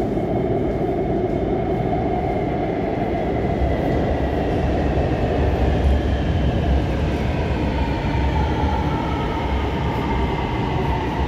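Lahore Orange Line metro train running into an underground station: a steady rumble with a thin whine that slides down in pitch as the train slows.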